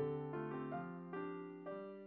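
Background piano music: chords struck about every half second, slowly fading.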